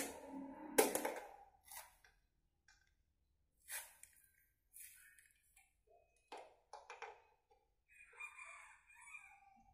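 Scattered faint metal clinks and knocks, with a short rattle near the end, from a tool and parts being handled while a coil-spring shock absorber is fitted to a homemade bicycle frame.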